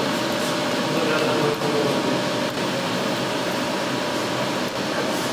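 Phaeton UD-3206H large-format inkjet printer running: a steady machine hum with a few faint ticks.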